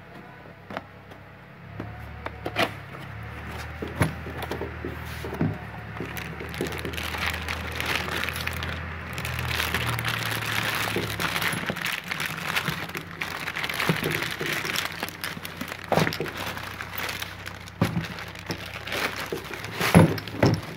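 Clear plastic bag crinkling and rustling as a coiled welding-torch cable is pulled out of it, with a few sharp knocks of the cable and torch against the cardboard box, the loudest near the end.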